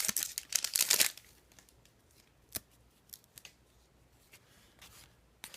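Foil wrapper of a hockey card pack tearing and crinkling for about a second, then quiet with a sharp click about two and a half seconds in and a few faint ticks.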